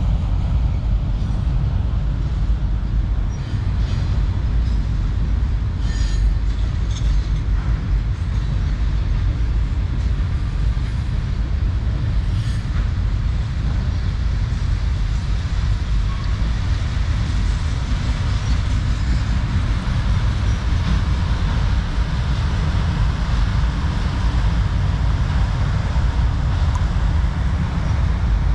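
Freight cars of a long Norfolk Southern manifest train rolling past at a constant speed: a steady low rumble of steel wheels on rail, with a few sharp clicks from the wheels.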